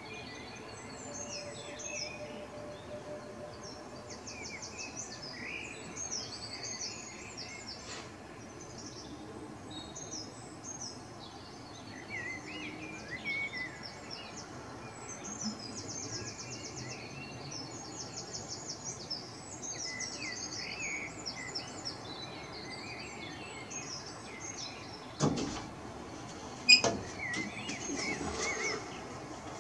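Several songbirds singing in a dawn chorus, with overlapping chirps, rapid trills and warbles. Two sharp knocks come near the end, about a second and a half apart, the second one the loudest.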